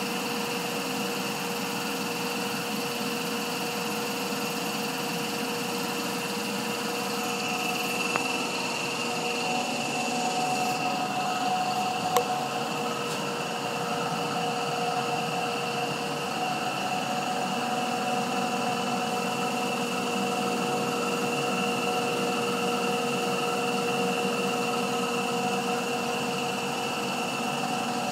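Coltri MCH5-CNG home natural gas compressor running steadily, compressing gas during a fill toward its rated 3600 psi: an even mechanical hum with a few steady tones over a hiss. A single sharp click about twelve seconds in.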